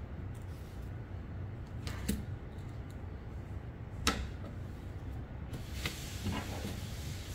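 Small parts being handled: a few sharp clicks and knocks, the clearest about two and four seconds in, over a low steady hum, with a high hiss coming in near the end.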